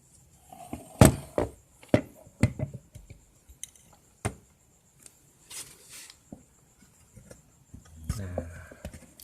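A scatter of sharp metallic clinks and knocks from a sewing machine being handled and repositioned, metal parts and tools knocking against it; the loudest knock comes about a second in.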